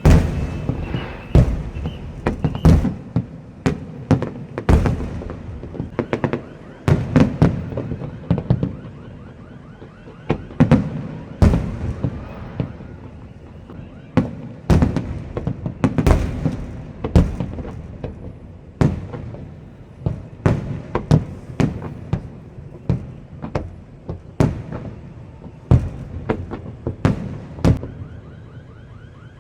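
Fireworks display: aerial shells bursting in quick, irregular succession, deep booms mixed with sharp cracks, often several in a second.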